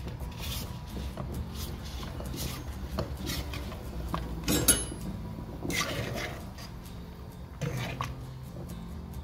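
Utensil clinking and knocking against an enamelled-steel cooking pot as lasagna sheets are put into the boiling water a few at a time, several separate knocks, the loudest a little past halfway.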